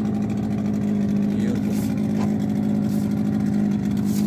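Boat engine running steadily under way, a constant low hum at one pitch.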